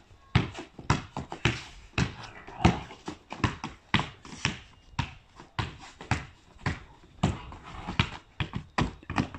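Basketball dribbled on a timber deck, bouncing steadily about twice a second.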